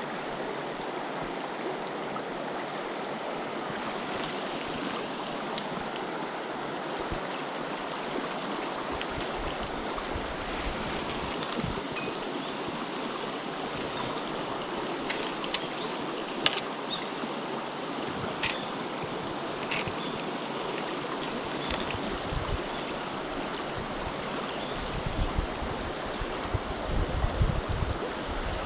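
Mountain stream rushing steadily over rocks, with a few faint clicks in the middle and some low bumps near the end.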